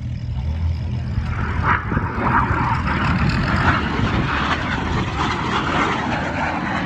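Jet noise from the Red Arrows' BAE Hawk T1 jets flying over, a dense rushing roar that grows louder over the first few seconds and then holds.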